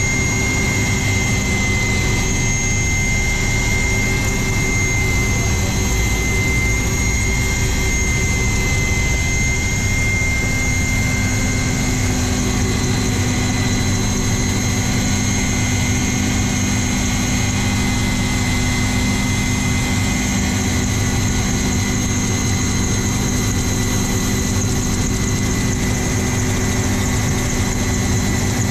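Cabin noise of a twin-engine Kamov Ka-226 helicopter with its side door open: the engines and coaxial rotors run steadily, a constant high turbine whine over a dense, even roar.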